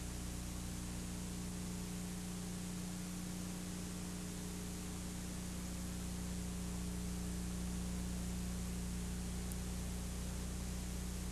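Steady hiss with a low electrical hum and no other sound: the background noise of an old VHS tape recording.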